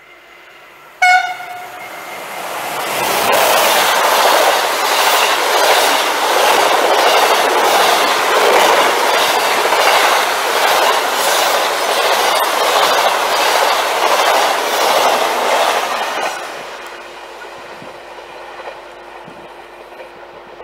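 Venice Simplon-Orient-Express passenger train sounding one short horn blast as it approaches, then running through the station at speed: a loud rush with a steady clickety-clack of the coaches' wheels over rail joints, fading as the train recedes.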